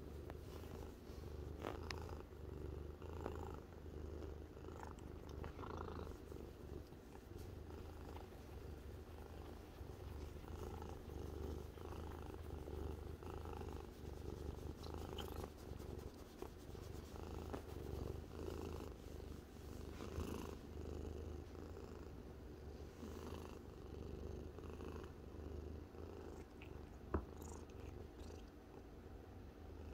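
Domestic cat purring steadily while being stroked, the purr pulsing in and out every second or so. A single sharp click near the end.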